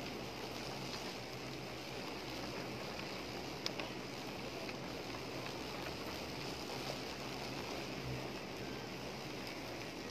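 Steady rushing noise of wind on the microphone, with one small click about three and a half seconds in.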